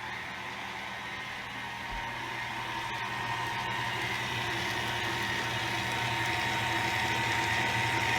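Electric mixer running steadily at low speed, beating cake batter, with a steady motor hum and whine that slowly grows louder.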